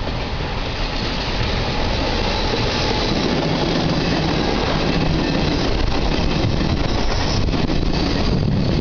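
Regional passenger train of double-deck coaches hauled by an E464 electric locomotive running past: a steady rumble and rush of wheels on rail that brightens a few seconds in as the coaches go by.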